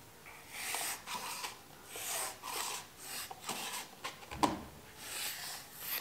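Craft knife cutting excess wallpaper along a spatula held against the skirting board: several soft, scratchy strokes, with a slightly fuller one about four and a half seconds in.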